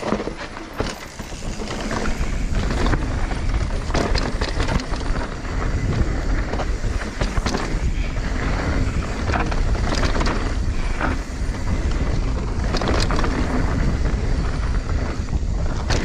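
Mountain bike riding fast down a rough dirt trail: heavy wind buffeting on the microphone over the rumble of the tyres, with the bike clattering and knocking over bumps. The noise builds up over the first couple of seconds as the bike picks up speed.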